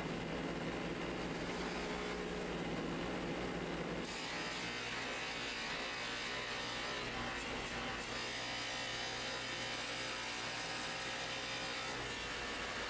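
Motor-driven grinding wheel running steadily while the rim of a metal cooker lid is pressed against it and turned, a continuous grinding hum; the sound turns hissier about four seconds in.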